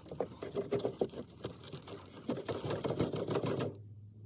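Electrical wire being fed down through a wall cavity, rattling and scraping against the inside of the wall in quick, irregular clicks that stop suddenly near the end.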